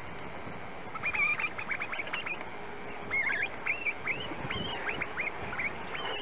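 Birds calling: a rapid run of short, sharp calls that starts about a second in and goes on over a steady background hiss.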